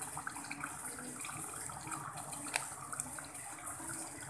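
Chicken curry simmering in a stainless steel pot on a gas burner: a steady sizzling hiss with small pops, and one sharp click about two and a half seconds in.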